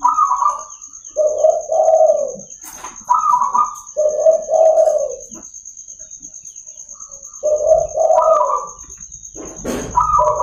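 Zebra dove (perkutut) cooing: repeated phrases, each a short higher stuttering note followed by two lower, rounded coos, heard about three times with pauses between.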